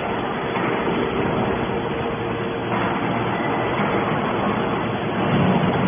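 Hydraulic scrap metal baler running, a steady machine hum with faint steady tones, that grows a little louder near the end.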